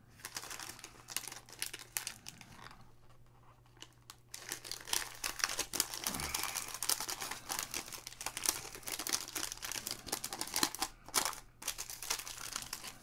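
Foil wrapper of an Illusions football card pack crinkling and tearing as hands work it open. It is lighter and broken for the first few seconds, then crackles densely from about four seconds in.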